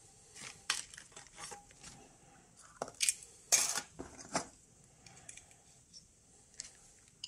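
Handling noise on a desk: irregular rustles and light clicks as hands move a Geiger-counter probe, its alligator-clip lead and a bagged sample about. The loudest rustle comes about three and a half seconds in.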